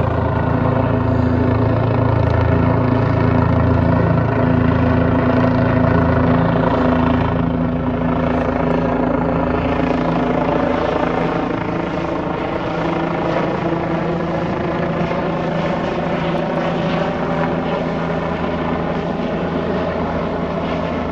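Helicopter rotor and engine running steadily with a deep, evenly pitched drone. It eases a little quieter partway through while lifting a power pole on a sling.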